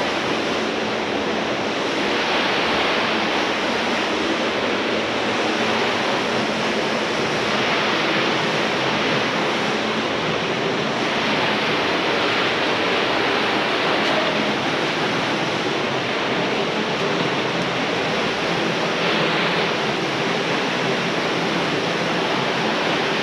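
Creek water running and splashing down a slot canyon, a steady rushing sound.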